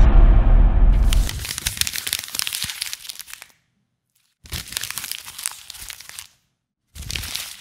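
Sound-effect clips played back one after another with dead silence between them: a heavy low thump opening into dense crackling that fades over about three seconds, then two shorter bursts of crackling.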